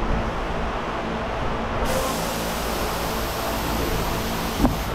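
Steady low rumble with a faint hum, joined about two seconds in by a steady hiss that runs for nearly three seconds and stops abruptly, with a single knock just before it ends.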